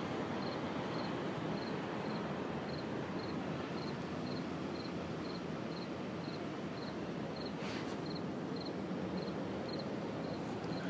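Steady outdoor background noise beside a parking lot, with a faint high chirp repeating evenly about twice a second.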